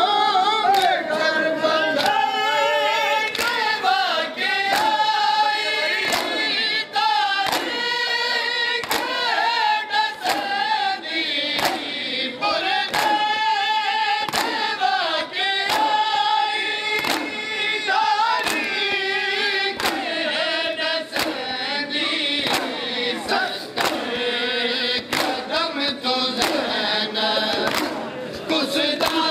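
A crowd of men chanting a mourning lament (noha) together, with sharp rhythmic slaps of open hands striking bare chests in unison (matam), about one and a half beats a second.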